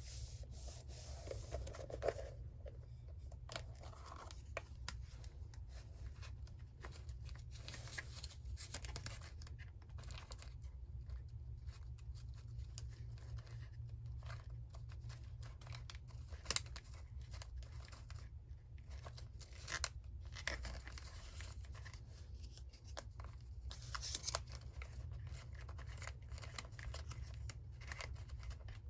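Paper being handled for collage: scattered rustles, small tears and snips of paper, with a steady low hum underneath.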